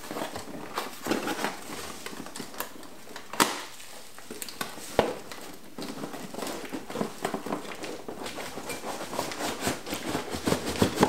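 Packing material rustling and crinkling inside a cardboard box as hands rummage through it, with scattered small clicks and a couple of sharper knocks about three and a half and five seconds in.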